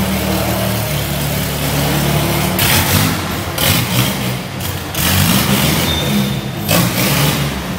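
A modified car engine running, revved briefly a few times: about a third of the way in, around two-thirds of the way through, and near the end.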